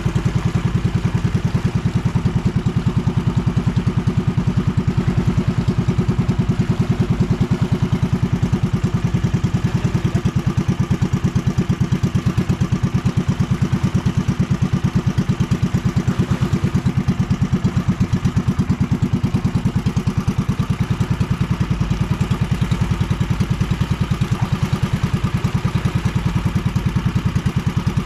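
Outrigger fishing boat's small engine running steadily, with a fast, even beat of firing strokes that does not change throughout.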